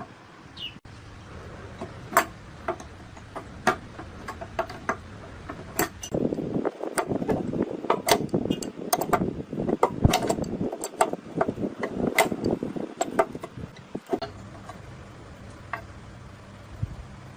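Hand-tool work on metal engine parts: scattered sharp metallic clinks and knocks, with a denser stretch of rough scraping and knocking in the middle, over a steady low hum.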